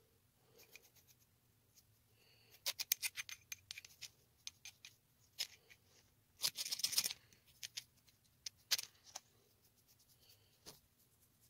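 Handling noise from a steel hatchet head turned over in the hand: light metallic clicks and rattles, a quick run of clicks about two and a half seconds in, a short scraping rustle a little past halfway, and a few single clicks.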